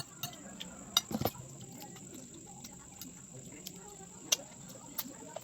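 Cutlery tapping and clinking against a dish while eating: a few scattered sharp clicks, the loudest about a second in, with a quieter pair near the end.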